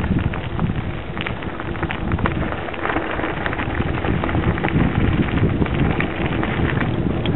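Mountain bike tyres crunching over a loose gravel track, with many small clicks and rattles, under steady wind noise on the head-mounted camera's microphone.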